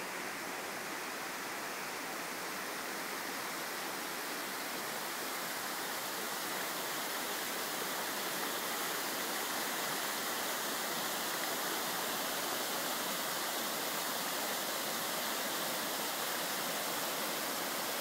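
Rushing white water of a small rocky waterfall cascading over rocks: a steady hiss that grows a little louder about halfway through.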